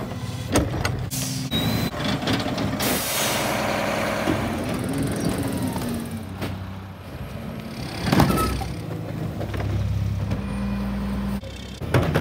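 Rear-loader garbage trucks at work, several clips cut together: diesel engines running and revving to drive the hydraulic packer, with a hiss and knocks from the loading. The sound changes abruptly at each cut, and a loud knock about eight seconds in is the loudest moment.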